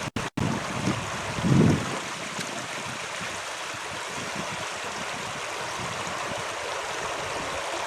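Steady rush of a flowing stream. The sound cuts out for a moment just after the start, and there are a few low thuds in the first two seconds.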